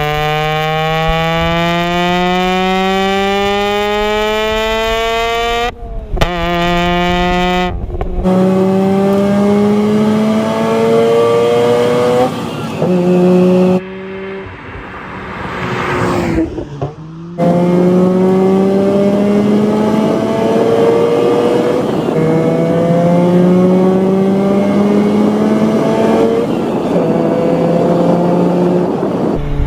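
Mazda RX-8's 1.3-litre twin-rotor Wankel engine accelerating hard, its note rising steadily through the revs with brief drops at each upshift. Midway there is a short lull where the engine note falls away and then climbs again.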